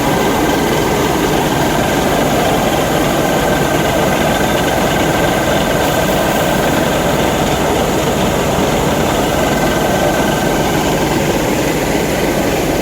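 Large rice combine harvester running steadily, its diesel engine and machinery making a loud even noise, with a faint high whine that fades out about nine seconds in.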